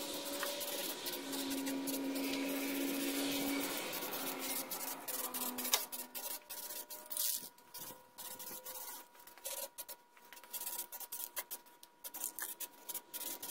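Aerosol can of zinc primer spraying in a steady hiss for the first five or six seconds, then quick irregular clicks and rattles from the can being handled and shaken.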